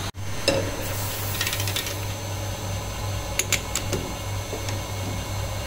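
A steady low motor-like hum, with a few light metal clicks and taps.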